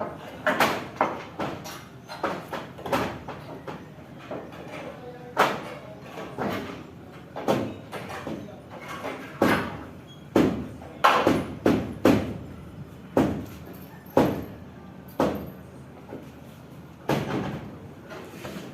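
Pick (piko) striking hard ground or concrete again and again at an uneven pace, roughly one blow a second, each blow a sharp knock with a short ring after it.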